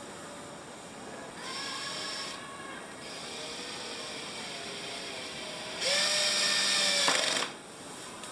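Cordless drill-driver running in three bursts against a wooden seat board, driving in a screw. A short run about a second and a half in is followed by a longer, quieter one. The last run, about six seconds in, is the loudest: its pitch dips and recovers, then it stops sharply.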